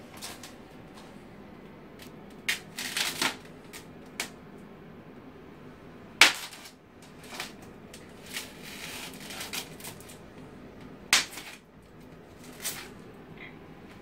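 Scratches, scrapes and squeaky rubbing from a large polystyrene foam shipping box being picked at and pried open by hand, in irregular bursts with the sharpest about six and eleven seconds in.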